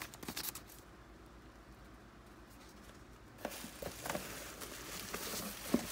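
Bubble wrap and paper packing rustling and crinkling as a hand handles them inside a cardboard shipping box. It goes quiet for a couple of seconds, resumes about three and a half seconds in with light crinkling and small knocks, and ends with a sharper click.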